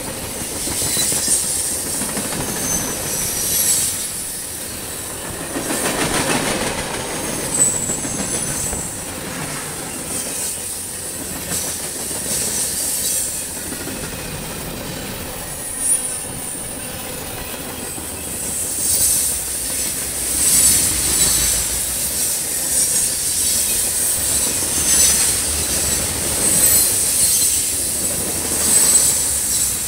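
Freight train of tank cars and hopper cars rolling past close by: a steady rumble of steel wheels on rail with clicking over the rail joints. High-pitched wheel squeal wavers throughout and grows stronger in the second half.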